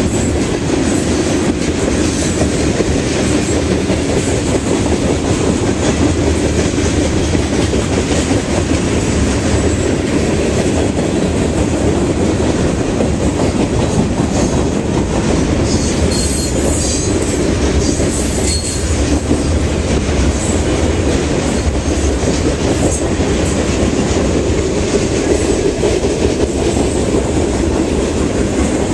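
Freight train cars rolling past close by, their steel wheels clacking over rail joints in a steady rhythm over a continuous rumble, with a few brief high wheel squeals a little past the middle.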